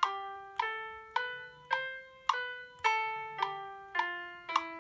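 GarageBand Grand Piano on an iPad playing a C major scale one note at a time, about two notes a second, over a metronome click. It climbs to the top C about two seconds in, then steps back down.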